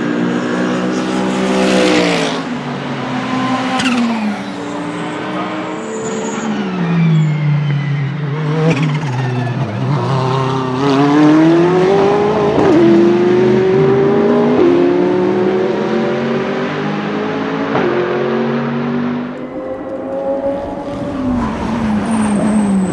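Ferrari 488 GT3's twin-turbo V8 race engine at speed, its pitch repeatedly climbing under acceleration and dropping sharply at gear changes.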